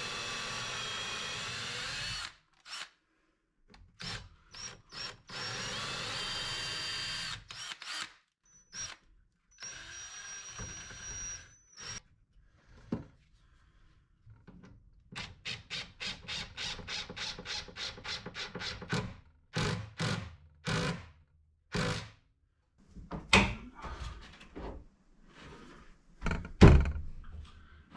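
Cordless drill driving deck screws through cabinet face frames in three runs, its whine bending in pitch as each screw bites and seats. These are followed by a quick string of short pulses and then scattered knocks of clamps and wood being handled, with one sharp knock near the end.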